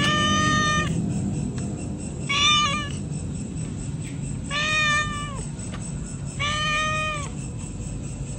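Domestic cat meowing: four long meows, each just under a second, about two seconds apart, each holding an even pitch.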